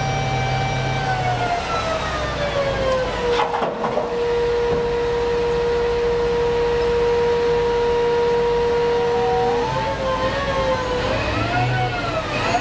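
Giant mining dump truck running, with a high steady whine over a low engine rumble: the whine drops in pitch over a couple of seconds, holds steady, then wavers up and down near the end.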